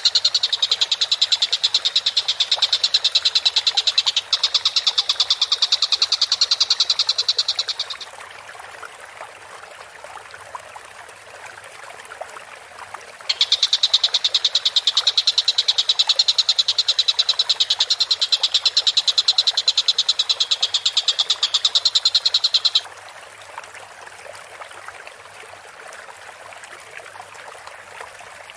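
Tengkek buto bird singing: a very fast, high, rattling trill held for about eight seconds, then, after a pause of about five seconds, a second trill of about nine seconds; each bout starts and stops abruptly.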